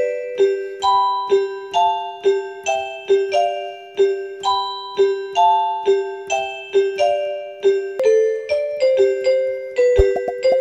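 Background music: a gentle keyboard melody of single struck notes, each fading, about two a second. Near the end a few brief low thumps come in.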